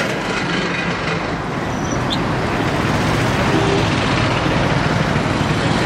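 Diesel tractor engines idling with passing highway traffic, a steady mix of engine hum and road noise.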